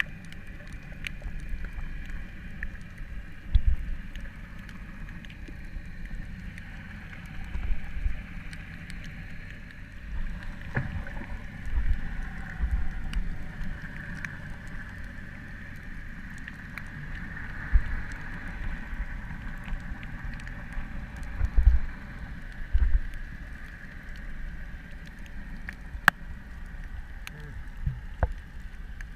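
Underwater sound picked up through a camera: a muffled water rush with irregular low thumps and many scattered faint clicks.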